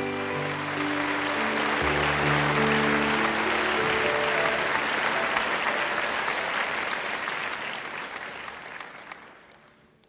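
Audience applauding, with held notes of background music underneath; the applause dies away and everything fades to silence near the end.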